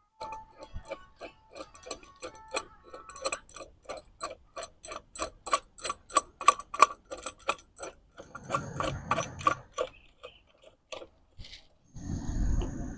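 Metal clicking from bolts and nuts being fitted on a flanged 4-inch butterfly valve joint, settling into a quick, regular run of about three or four clicks a second. The clicking gives way to rustling handling noise, with a short louder low rumble near the end.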